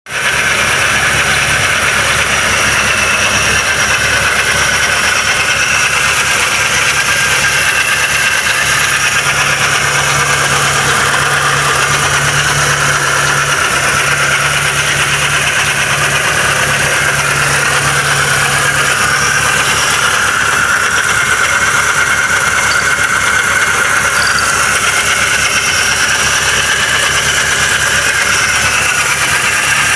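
Mercedes-Benz C320's M112 V6 engine idling steadily with an abnormal knocking noise.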